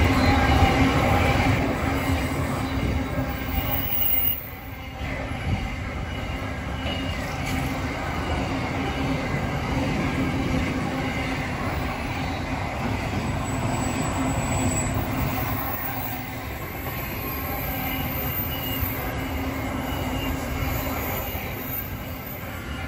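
Container wagons of a long freight train rolling past on the rails, wheels rumbling, with a steady metallic wheel squeal as the train comes off a curve. Loudest at the start, easing a little about four seconds in.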